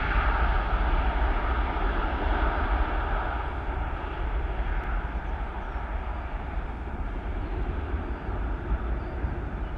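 Jet engine noise of an Airbus A330-300 airliner climbing away after takeoff: a steady roar with a faint held tone, slowly fading as the aircraft recedes.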